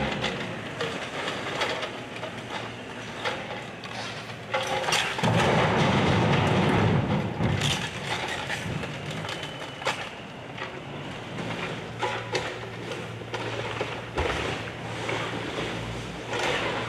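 Compact Bobcat excavator demolishing a wood-frame house: its engine hums steadily while timber cracks and splinters and debris clatters. A louder crash of falling debris comes about five seconds in and lasts a couple of seconds.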